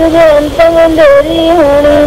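A voice chanting devotional verse in a sing-song melody, holding long notes that step up and down in pitch with only brief breaks.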